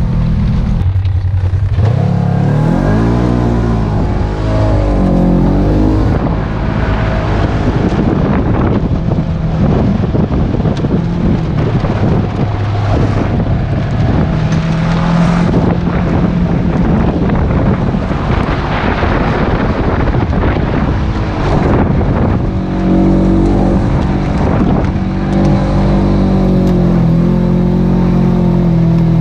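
A 2017 Polaris RZR 900S side-by-side's twin-cylinder engine revving up and down while driving a muddy dirt trail. Its pitch swings rapidly in the first few seconds, then runs steadier under throttle, over a constant rush of tyre and wind noise.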